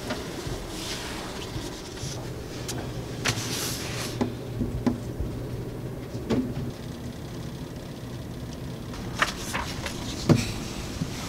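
Steady low room hum with a handful of light knocks and clicks, from a person shifting at a wooden study desk and chair.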